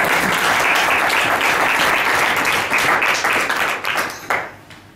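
Audience applauding, the clapping fading away about four seconds in.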